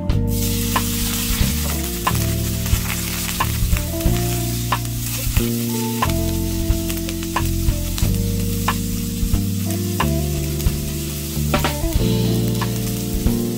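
Cubes of firm tofu dropped into hot oil in a non-stick frying pan start sizzling the moment they land, then keep frying steadily as a spatula stirs them.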